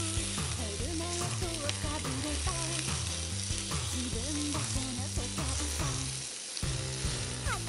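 Meat sizzling in a small frying pan on a portable gas canister stove, stirred with a fork, under background music with a bass line that drops out briefly near the end.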